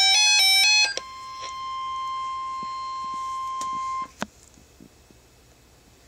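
A fast, loud run of electronic tones hopping in pitch, then a steady single-pitched NOAA Weather Radio alert tone of about 1 kHz for about three seconds. The alert tone cuts off with a click, leaving faint broadcast hiss.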